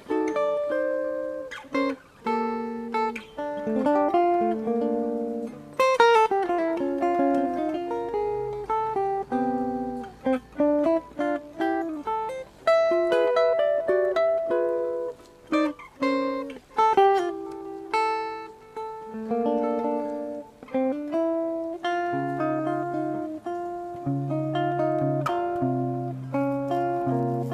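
Jazz guitar playing cluster chord voicings, built with close seconds between the notes. The chords are plucked one after another and left to ring, some rolled quickly from low to high, with lower bass notes joining in near the end.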